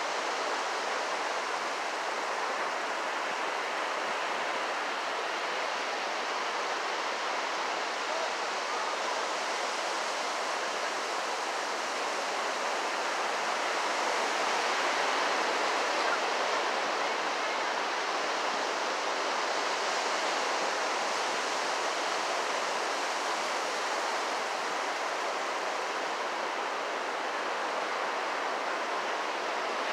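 Pacific Ocean surf breaking on a sandy beach: a steady, continuous wash of waves that swells slightly about halfway through.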